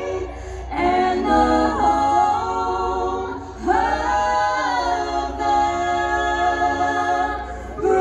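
Unaccompanied singing in long held notes with vibrato, a new phrase starting about a second in and another near the middle.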